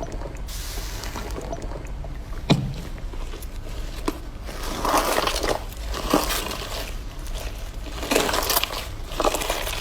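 Slime being pressed and squeezed by hand, with a sharp pop and a smaller one early on, then several bursts of wet, crackling squishes from about halfway in.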